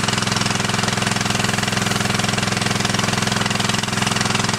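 Gasoline-powered portable fire pump engine running steadily at operating speed, pumping water out through a fully open fire hose.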